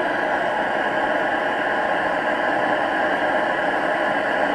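A diesel air heater running with the end of its combustion chamber cut off, so the burning fuel inside is exposed. It makes a steady, even rushing noise.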